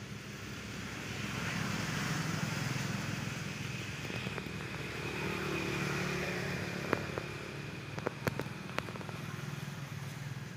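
Motor vehicles going by, their engine noise swelling and fading twice. A few sharp clicks come near the end.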